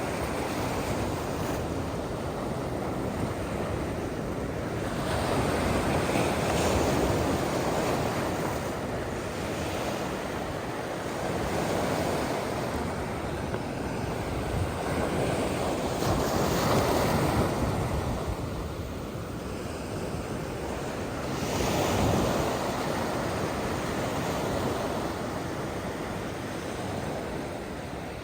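Ocean surf breaking on a beach: a continuous rushing wash that swells as each wave breaks, roughly every five seconds.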